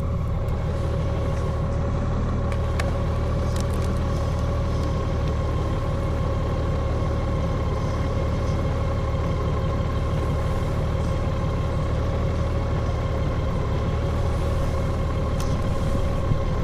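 Honda Gold Wing motorcycle engine running steadily, a low rumble with a steady hum above it and no revving.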